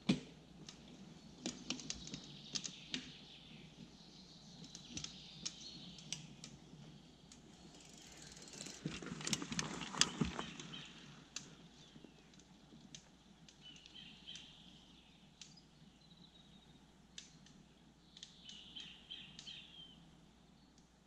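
A fat bike's wide knobby tyres rolling past on a dirt trail strewn with pine needles and twigs. The sound swells with crackles and clicks, is loudest about ten seconds in, then fades as the bike moves away. Birds chirp faintly later on.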